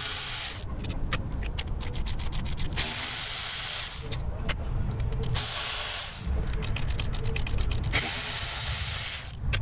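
Milwaukee cordless electric ratchet spinning out bolts in about four short runs of motor whir, with stretches of rapid ratchet clicking in between.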